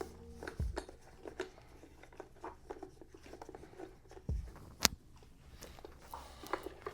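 Screws being tightened by hand on a stringing machine's tension-head mounting bracket: scattered small clicks and scrapes, a few dull knocks, and one sharp click about five seconds in.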